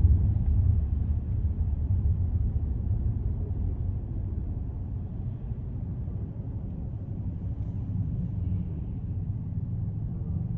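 Car driving on city roads: a steady low rumble of road and engine noise, easing off over the first few seconds.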